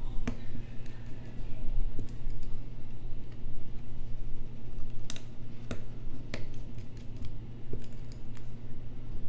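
Irregular small clicks and taps of metal tools and parts being handled while an iPhone X is reassembled, over a steady low hum.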